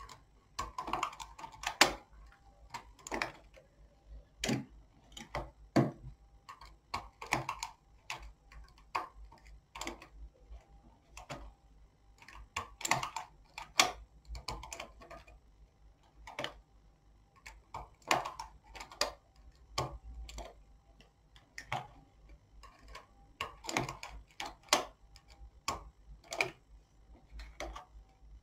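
Knitting needles clicking against each other in irregular little clusters while stitches of a neckline border are worked.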